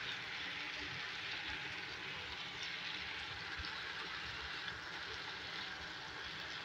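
Cream-marinated chicken boti on skewers sizzling steadily as they fry in a lightly oiled pan.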